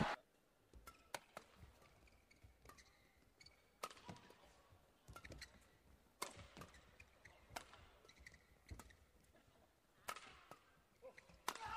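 Badminton rackets striking a feathered shuttlecock during a doubles rally: faint, sharp hits at irregular intervals, roughly a second apart.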